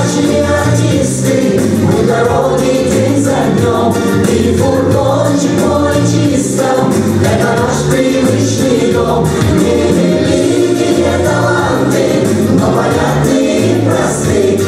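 A mixed vocal ensemble of men and women singing together into handheld microphones over instrumental accompaniment with a steady bass line.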